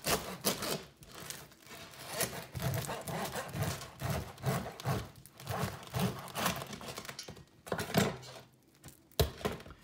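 Serrated bread knife sawing back and forth through the crust of a round sourdough loaf, rough scraping strokes about two a second that fade near the end, followed by a short sharp knock.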